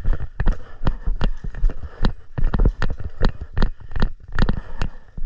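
Quick footsteps on the ground, about three steps a second, each a dull thud.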